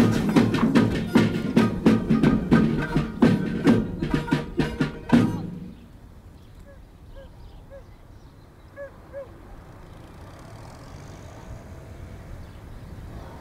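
Percussive music with a quick, busy beat of sharp strokes that stops suddenly about five seconds in, followed by faint background ambience with a few short, high chirps.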